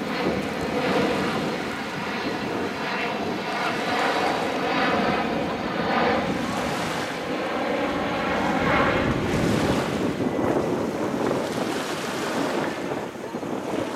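Engine drone of a passing airplane, a steady hum with several pitched tones that fades near the end, over small waves lapping at the shore.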